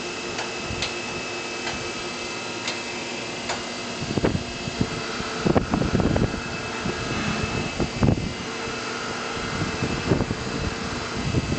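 Powered-up CNC vertical machining center humming steadily. A faint whir comes and goes as the axes are jogged from the control panel. Several loud knocks and clunks come in the middle, the loudest around the halfway point.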